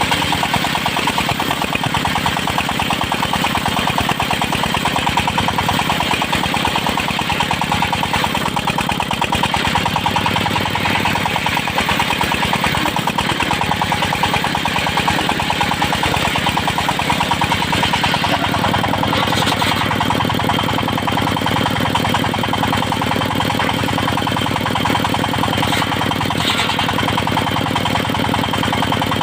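An engine-driven circular sawmill running steadily, its motor and blade making one continuous loud sound. The low part of the sound shifts slightly about eighteen seconds in.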